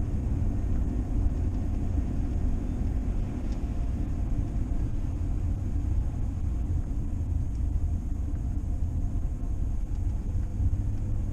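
A vehicle on the move: a steady low rumble of engine and road noise, even throughout.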